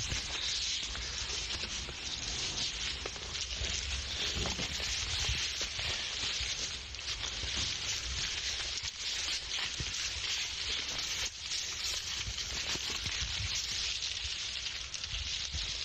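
Steady crackling hiss with a low rumble underneath: continuous outdoor background noise.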